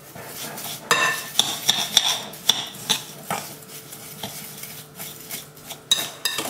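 Metal spoon stirring coarse salt and brown sugar in a glass bowl: a gritty scraping with irregular clinks of the spoon against the glass.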